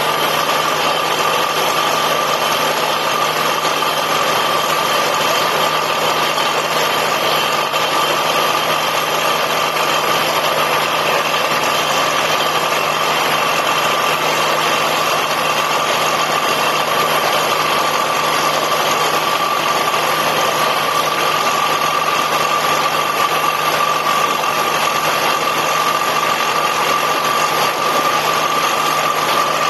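Borewell drilling rig running steadily: constant engine noise with a steady high whine over it and no change throughout.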